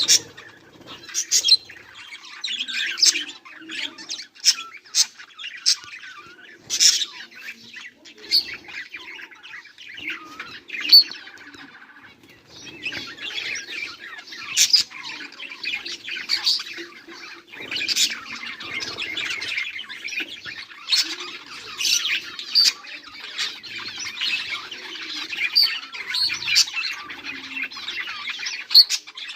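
Budgerigars chirping and chattering, with sharp, loud single calls scattered through; the chatter turns denser and unbroken about halfway through.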